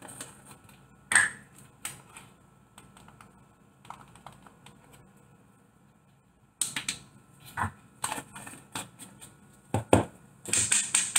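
Clicks and taps of a measuring spoon and spice jar against a ceramic mixing bowl as dried oregano is measured in, scattered at first, then a busy run of taps and a quick flurry near the end.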